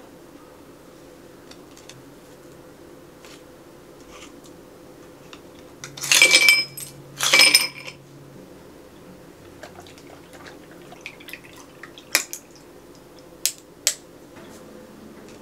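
Ice cubes dropped into a stemmed glass in two loud clattering bursts about six and seven seconds in, the glass ringing after each. A few sharp single clinks of ice against glass follow near the end as a red drink goes in over the ice. A steady faint hum lies under it all.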